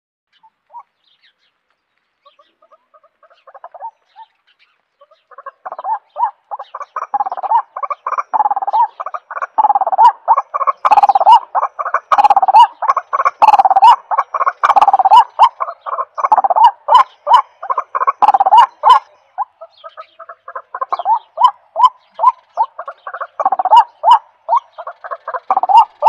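White-breasted waterhen calling: a long run of rapid, frog-like croaking notes that starts faintly, grows loud after a few seconds and keeps a steady quick pulse.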